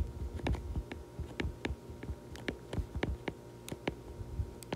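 Stylus tip tapping and clicking on a tablet's glass screen during handwriting: a quick, irregular series of light taps.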